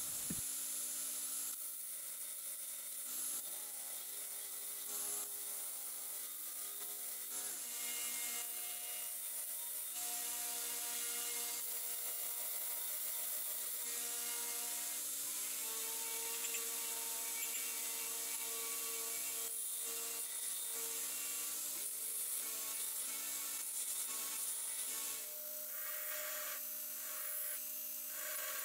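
Belt grinder running with a steel hatchet head pressed against its abrasive belt: a steady grinding hiss over the machine's steady hum. The Brodbeck Incinerator belt is close to the end of its life.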